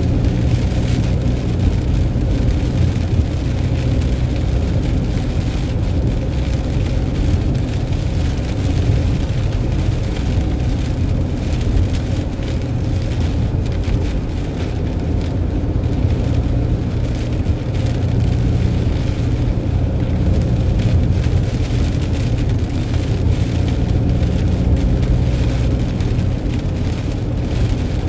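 Vehicle driving steadily at motorway speed on a wet road: a constant low rumble of engine and tyres under an even hiss of rain and spray.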